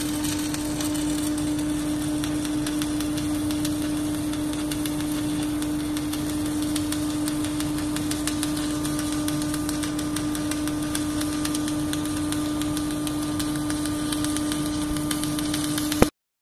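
Submerged arc welding rig running on X80 pipeline steel: a steady electrical hum with a continuous fine crackle beneath it, stopping abruptly just before the end.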